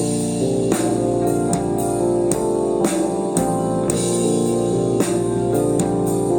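Live psychedelic rock band playing an instrumental passage: sustained keyboard chords over guitar, with drums and cymbal hits keeping the beat.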